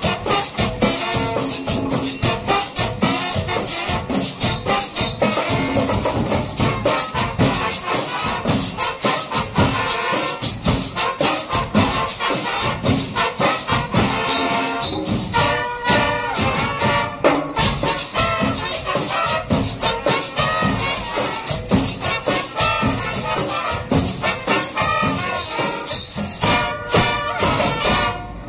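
School marching band playing: snare drums and bass drums beat a steady, driving rhythm under trumpets and trombones. The piece stops right at the end.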